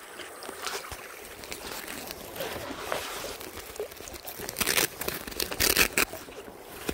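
Rustling and crinkling handling noise, with a cluster of louder rustles about five seconds in.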